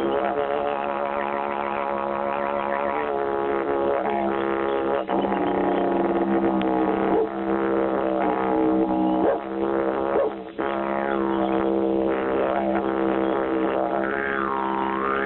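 Didgeridoo playing a continuous drone, its overtones sweeping up and down as the player shapes the tone, with a few brief breaks in the sound.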